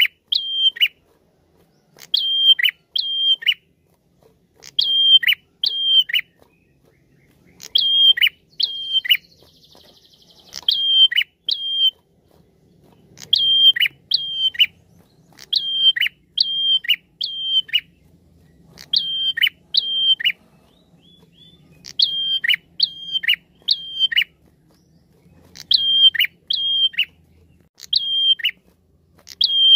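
A caged tailorbird (prenjak) calling over and over in loud, sharp groups of two or three notes. Each note sweeps quickly down in pitch, and a new group comes every second or two.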